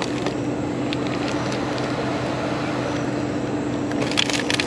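Plastic trash bags and packaged food crinkling and rustling as gloved hands rummage through a dumpster, the crinkling thickest near the end, over a steady machine hum.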